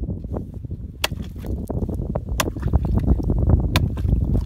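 Pond ice being chopped with a long-handled hand tool: three sharp strikes a little over a second apart, with a clutter of smaller knocks and sloshing water from broken ice between them.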